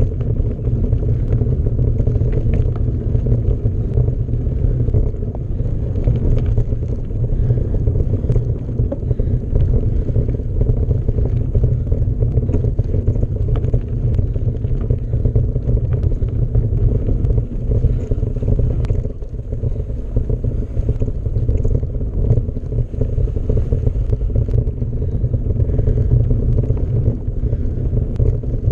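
Mountain bike being ridden: wind on the microphone and the rolling tyres make a steady low rumble, with light clicks and rattles from the bike.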